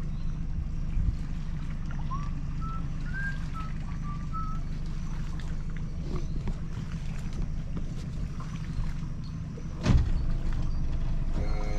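A small boat's outboard motor idling with a steady low hum. A bird chirps a few times a couple of seconds in, and about ten seconds in there is one sharp, loud knock on the aluminium boat as the man drops to his knees on the bow.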